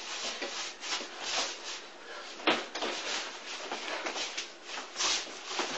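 Arms and sleeves brushing and slapping against each other in quick, irregular strokes during close-range sticky-hands (chi sao) sparring, with one sharper slap about two and a half seconds in.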